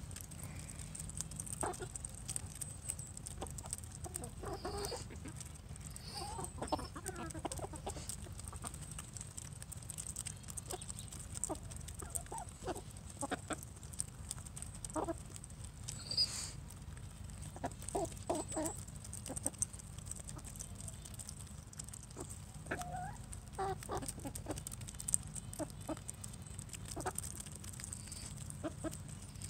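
Flock of Calico Princess and Sapphire Gem hens clucking in short, scattered calls as they peck at scratch grain.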